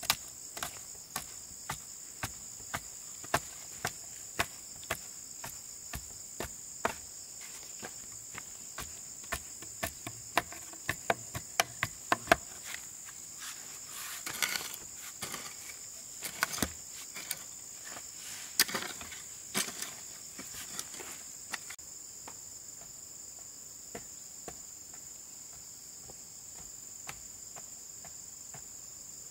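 A steady high drone of insects, with a series of sharp knocks over it, at first about one and a half a second, quicker around the middle, thinning out and stopping about three quarters of the way through.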